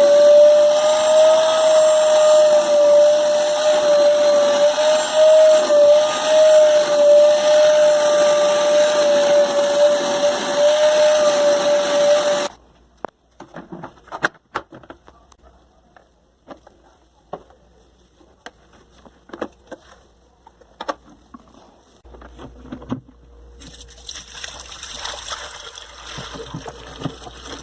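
Electrolux Hidrolux wet/dry vacuum cleaner's motor running with a steady high whine, switching off suddenly about halfway through. Scattered light knocks and clicks follow, and a fainter hiss starts near the end.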